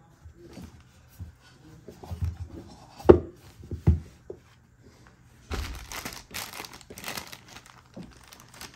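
Two sharp knocks about three and four seconds in as the hard eyeglass case is handled, then thin clear plastic packaging crinkling steadily as it is handled for the last few seconds.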